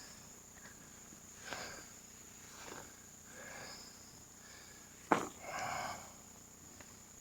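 Faint, steady, high-pitched drone of swamp insects, with several soft, breathy sounds and a sharp click about five seconds in.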